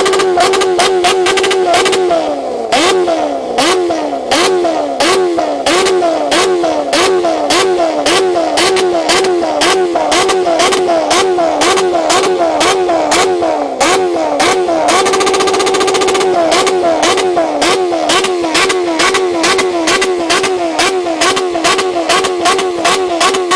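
Sport motorcycle engine with a loud aftermarket exhaust held at the rev limiter: the engine note holds at high revs, then repeatedly drops and climbs back as the limiter cuts the ignition, with a sharp crack from the exhaust at each cut as it spits flames. The note holds steady at the limit again for a moment about two-thirds of the way through.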